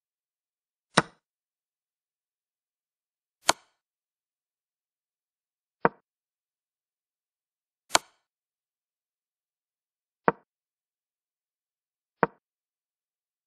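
Chess move sound effects from a digital chess board: six separate short clicks of pieces being placed, about two seconds apart. Two of them, about 3.5 and 8 seconds in, are brighter and sharper than the rest.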